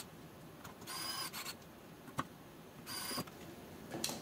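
Small electric precision screwdriver whirring in two short runs about two seconds apart as it drives small screws into a metal mount, with a sharp click between them.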